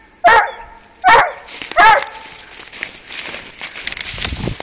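Young Cantabrian scent hound giving tongue on a wild boar trail: three short, loud barks about a second apart. They are followed by rustling and crunching through dry leaves and brush.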